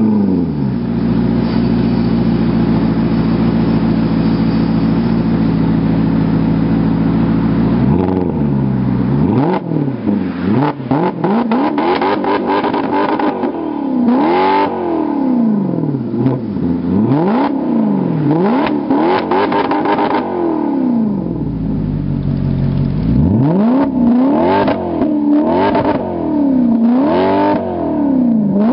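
Stock 4.7-litre V8 of a 2011 Maserati Quattroporte Sport GTS, heard at its exhaust tips in Sport mode, idling steadily just after start-up. About eight seconds in, it begins a long series of quick free revs, each rising and falling, with short sharp crackles among them. There is a brief return to idle, then more revs near the end.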